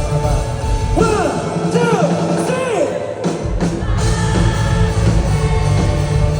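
Live rock band playing: sliding, arching notes about a second in, the low end drops out briefly, then the full band comes back in about three and a half seconds in.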